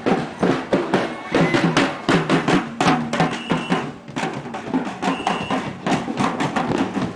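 Large bass drums beaten by parade drummers in a quick, steady rhythm, with crowd voices behind.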